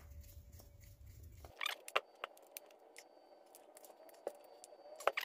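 Faint, scattered small clicks and taps of hand tools and small screws on a Honda Foreman ATV carburetor as the cap over the slide is being removed. A low background hum cuts off about a second and a half in.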